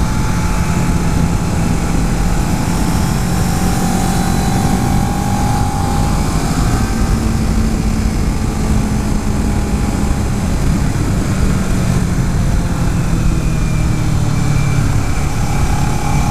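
Kawasaki Ninja 650's parallel-twin engine running under way at a mostly steady pitch, rising and falling slightly a few times, under a steady rush of wind and road noise.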